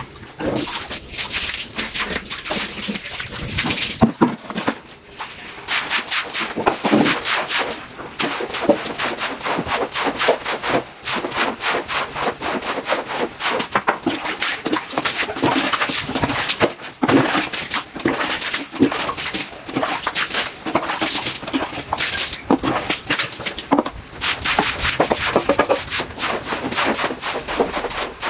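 Continuous rapid scratchy scrubbing strokes, with brief pauses.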